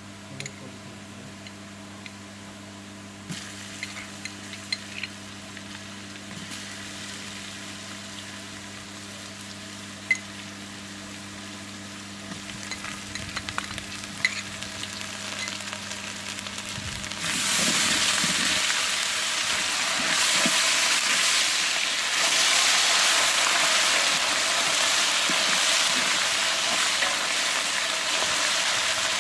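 Food frying in hot oil in a cooking pot: a light sizzle with scattered small pops builds slowly, then swells suddenly, about two-thirds of the way through, into a loud, steady sizzle.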